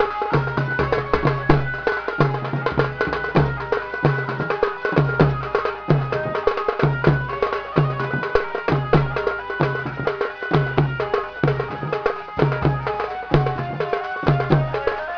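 Folk dance music: a large drum beaten with a stick in a steady driving rhythm, with many sharper strokes and a melody line over it.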